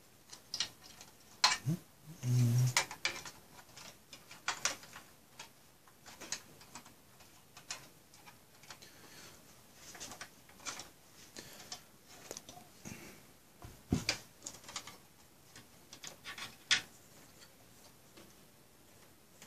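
Cables and plastic connectors being handled and pushed into place inside the sheet-metal chassis of an HP ProLiant MicroServer: scattered clicks, taps and rattles throughout, with a louder low hum lasting under a second about two seconds in.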